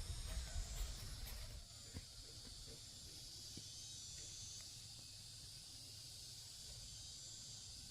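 Faint, steady high-pitched chirring of insects, with a low rumble for the first second and a half and a soft click about two seconds in.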